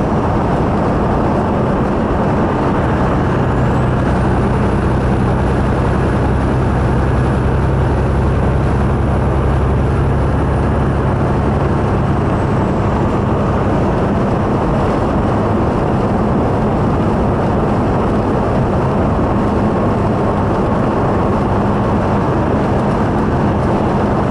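Tractor-trailer cruising down a highway: a steady drone of engine and road noise, with a low engine hum that is strongest for the first half and then eases off. A faint high whistle runs alongside it for several seconds.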